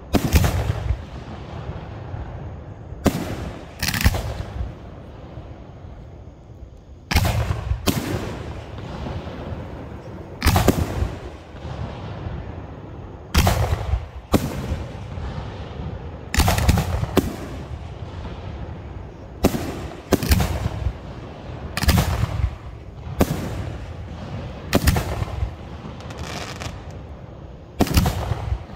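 Aerial firework shells launching and bursting in a continuous display: sharp bangs every one to three seconds, some in close pairs, each followed by a short rumbling echo.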